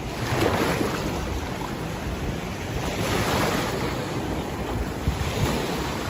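Sea waves washing up on a beach, swelling twice about three seconds apart, with wind buffeting the microphone.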